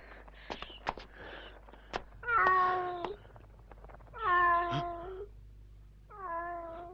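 A cat meowing three times, each call about a second long and about two seconds apart, after a few faint knocks and clicks.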